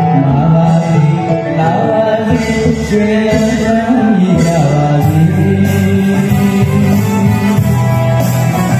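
A man singing a Burmese song through a microphone and PA, with live backing from a small band of drums and keyboard. About five seconds in, a deeper bass line and a high cymbal-like shimmer come in under the voice.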